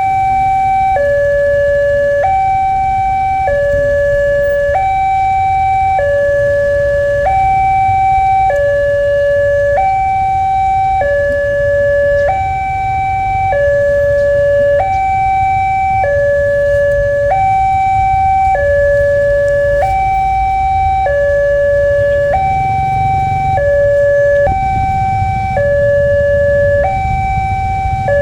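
Railway level-crossing warning alarm sounding a two-tone electronic hi-lo signal, switching pitch about once a second, over a low rumble.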